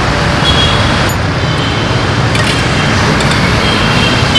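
Steady, loud road traffic noise of a busy street.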